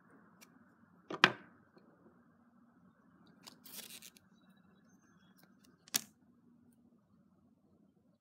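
Small hand-work noises while masking tape is laid on a pinball playfield: a sharp click about a second in, a short tearing rasp around four seconds, and another click near six seconds.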